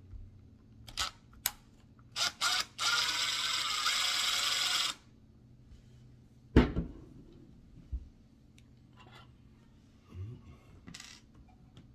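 Cordless drill run in reverse to back out a screw: two quick blips, then about two seconds of steady whirring. A sharp clunk follows a little later, with a few lighter knocks near the end.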